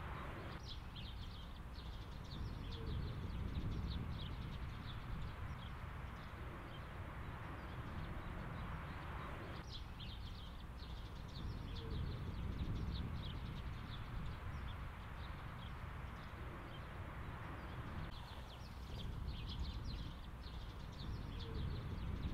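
Open-field ambience: wind rumbling on the microphone, with small birds singing in quick high chirps that come in several bouts.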